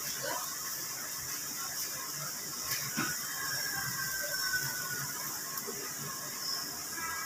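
Mutton in a white sauce sizzling in an iron karahi over a flame: a steady hiss, with a couple of clicks about three seconds in and a faint high squeal sliding down in pitch just after.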